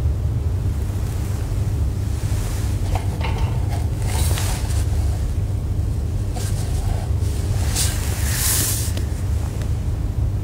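Steady low rumble, with soft rustling and handling noises a few seconds in and again about eight seconds in, as a monstrance is set down on the altar.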